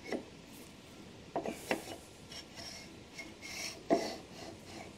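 Steel parts of a shaper gear cutter being fitted together by hand: a steel shaft sliding and scraping in the bore of the base tube, with a few light metal knocks and clinks, the loudest near 4 seconds in.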